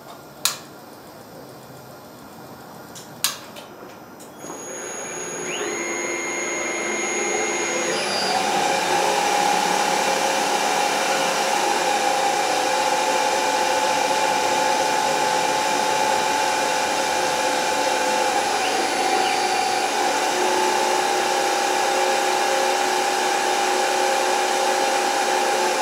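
Denford Orac CNC lathe: two sharp clicks, then the spindle motor spins up about four seconds in, its whine jumping higher in pitch around eight seconds and running steadily after that. The spindle speed shifts as constant surface speed control speeds it up while the cutter moves toward the centreline.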